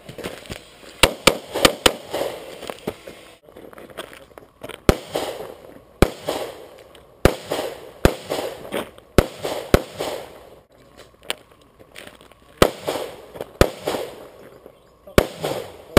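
Handgun shots fired during a practical pistol stage: about a dozen sharp cracks at uneven intervals, some in quick pairs with longer gaps between. Each shot is followed by a short echo.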